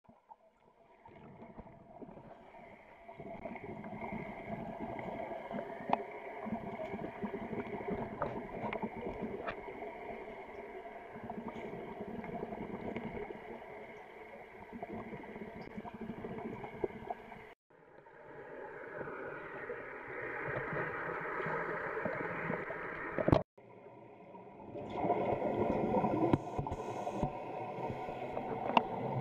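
Muffled underwater noise picked up by a Contour ROAM action camera submerged in a diving pool: steady gurgling and bubbling with a few light clicks, broken off sharply twice.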